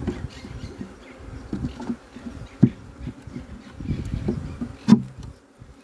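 Honeybees buzzing around an open hive close to the microphone, rising and falling as they fly past. Two sharp knocks, one near the middle and one near the end, as the hive frames are handled.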